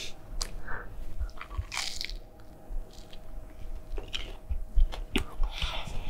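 Close-miked crunching as a person bites into and chews a crispy breaded McDonald's nugget: a run of irregular crisp crunches and crackles.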